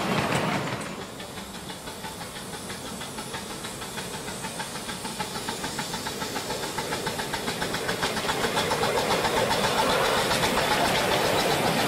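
Miniature live-steam locomotive working along the line, its exhaust beating in a fast, even rhythm over a hiss of steam and growing louder as it approaches.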